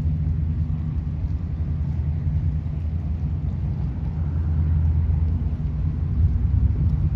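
Steady low rumble of a coast guard patrol vessel's engines as it comes in across the harbour under way.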